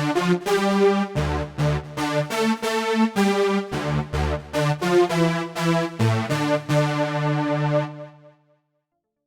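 Software synthesizer preset demo: a phrase of bright, pitched keyboard-like notes over lower bass notes, ringing out and fading to silence about eight seconds in.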